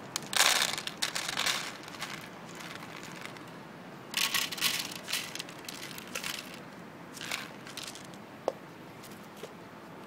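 Dry cat kibble poured from a plastic cup into a shallow takeaway tray, rattling in two main bursts and a shorter third, with a single sharp tick near the end.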